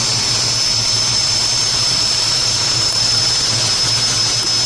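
Jet aircraft engines running steadily: a high, even whine over a low hum.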